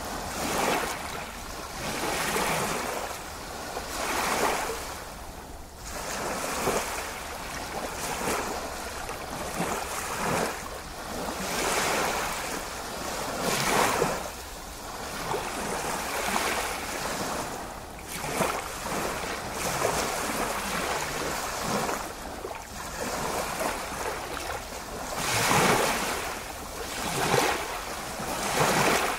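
Ocean surf: waves washing in and out, the noise swelling and fading every two to three seconds.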